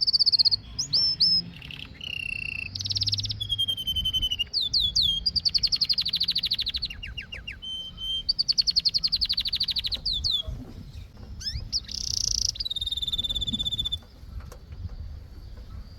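Domestic canary singing a run of phrases. Each phrase is a fast trill or rattling roll of rapidly repeated high notes, with short clear whistled notes between them. A new phrase starts every second or two.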